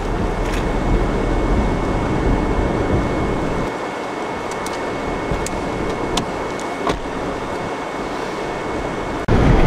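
Steady rush of rain and wind noise heard from inside a vehicle, with a few sharp ticks of drops striking the car. The deep rumble thins out about four seconds in and comes back abruptly near the end.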